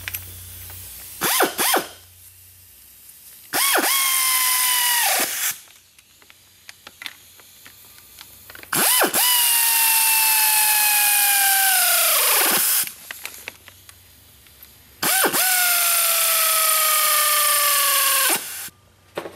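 Pneumatic air ratchet with an 8 mm hex bit running in three bursts of a few seconds each, a whine over a hiss of air, its pitch sagging toward the end of each run as it runs the hydraulic pump's regulator bolts down just tight. A couple of short blips of the tool about a second in.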